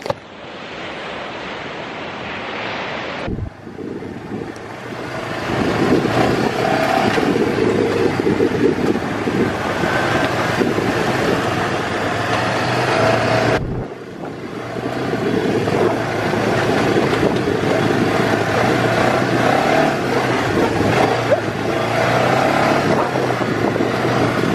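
Off-road dune buggy running along a sandy, bumpy track, heard from inside the open buggy, with wind rushing over the microphone. The sound drops out briefly twice, about three seconds in and again about fourteen seconds in.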